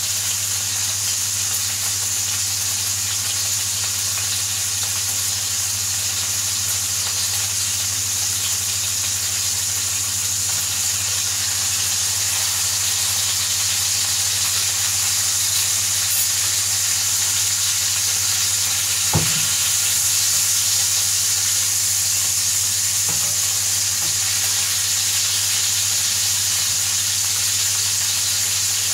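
Burger patties frying in a pan, sizzling steadily over a low steady hum, with one sharp knock about two-thirds of the way through.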